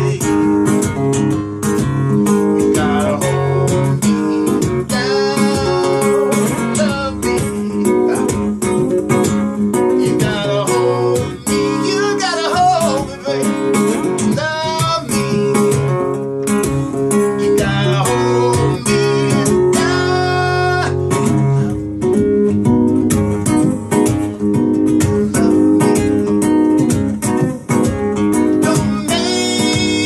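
A man singing a song while accompanying himself on a strummed acoustic-electric guitar, played live.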